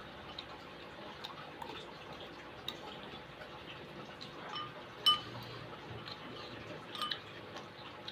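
Spoon clinking against a soup bowl while eating: small taps throughout, with a sharp ringing clink about five seconds in and another about seven seconds in.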